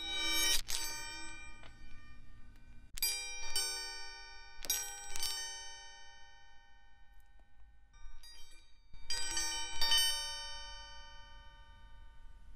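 Background music of sparse, bell-like struck notes that ring out and fade, coming in small clusters of a few notes at a time.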